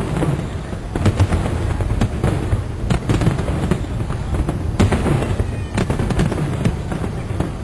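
Fireworks display bursting over a harbour: continual deep booms and rolling rumble, with rapid sharp crackles and pops throughout.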